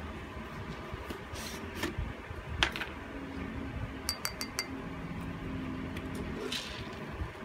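Light clicks and clinks of a plastic spoon being handled by a ceramic bowl, with a quick run of four sharp ticks about four seconds in.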